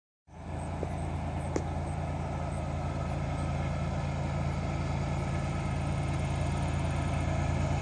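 Diesel engines of two CSX locomotives leading an approaching freight train: a steady low drone that grows slightly louder.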